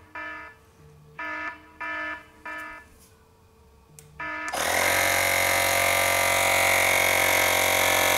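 Tire-pressure monitor alarm sounding a series of short beeps. About four and a half seconds in, a Lexin P4 cordless tire inflator's small electric compressor starts and runs steadily, louder than the beeps, pumping up a motorcycle's rear tire.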